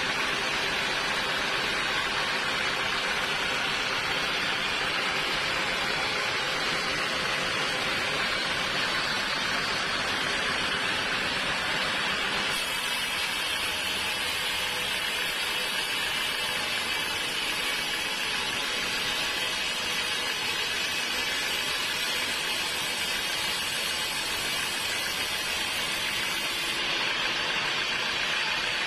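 Sawmill saw running steadily through a log. The whole cut is a loud, even, hissing machine noise, and its tone shifts about halfway through.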